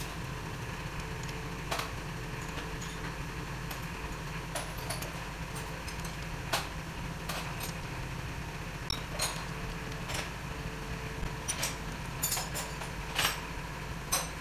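Scattered light metallic clicks and taps of main bearing cap bolts being threaded into a Suzuki K6A engine block and a socket being fitted to them. The clicks come more often in the second half, over a steady low hum.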